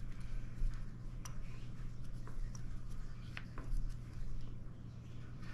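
A few light clicks and knocks of hard plastic being handled as a KISS Sidewinder rebreather's DSV mouthpiece is turned over in the hands, over a steady low hum.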